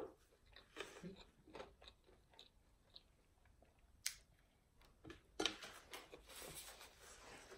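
Faint chewing and mouth sounds of a person eating, with a sharp click about four seconds in and a denser stretch of chewing and rustling in the last two seconds.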